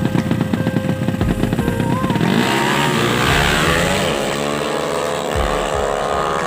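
Racing motorcycle engine running with a fast rapid pulse, then revving up with a rising pitch from about two and a half seconds in.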